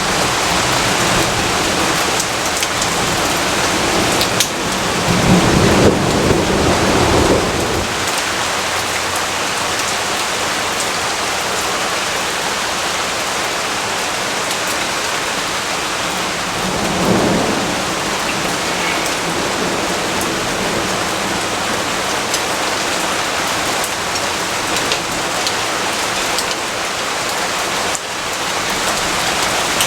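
Steady heavy rainfall with fine drop clicks. A roll of thunder swells in about five seconds in and fades after a few seconds, and a fainter rumble follows around seventeen seconds.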